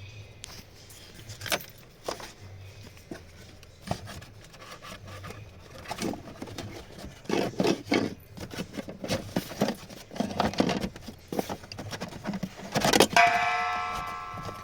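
Hands working with tools and parts: scattered clicks, rubs and scrapes, then near the end a sharp metallic knock that rings on and fades over a second or so.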